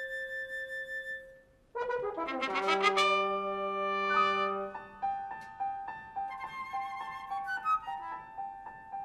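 Chamber ensemble playing contemporary classical music. A held chord stops about a second in, and after a short pause the full ensemble comes in suddenly and loudly with brass and piano, then settles into a quieter figure of evenly repeated notes.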